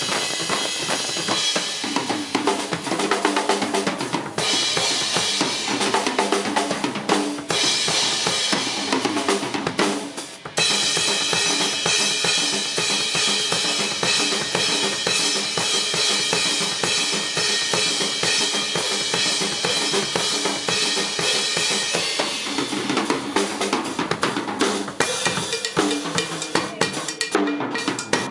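Live drum kit solo: fast bass drum, snare and tom strokes under a wash of ringing cymbals, with a brief break about ten seconds in.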